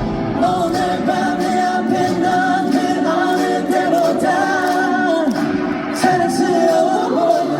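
Pop-rock song with many voices singing the melody together, like a concert crowd singing along.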